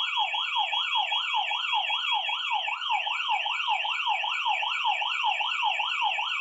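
Fire alarm system sounding after a smoke alarm has been triggered: a rapid warbling siren, about three up-and-down sweeps a second, over a steady high-pitched tone.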